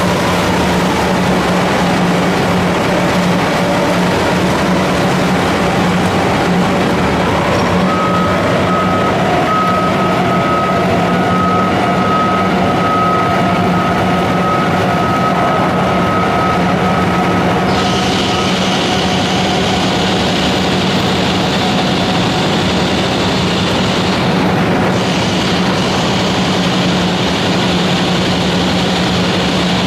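Lindner 95DK shredder with its Cat C18 diesel engine running steadily under load as it shreds telephone poles. A thin whine sounds for about ten seconds in the middle, and a higher hiss joins a little past the middle.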